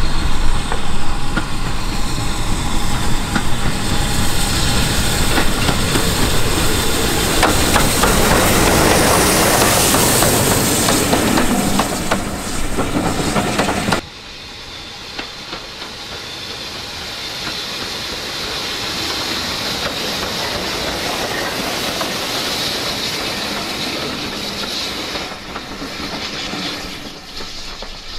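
Steam train running close past, loud for the first half, cut off suddenly about halfway through. A quieter train passage then swells and fades away.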